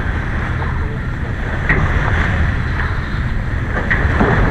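Wind buffeting the microphone over the rush of water along a sailboat's hull as it sails, with a few short sharp sounds near the middle and end.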